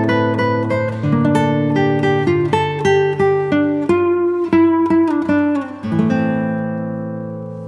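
Background music on acoustic guitar: a plucked melody over bass notes, settling on a chord that rings and fades from about six seconds in.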